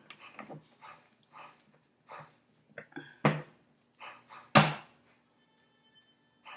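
Tarot cards being handled on a table: a scatter of soft taps and knocks, with two sharper knocks about three and four and a half seconds in.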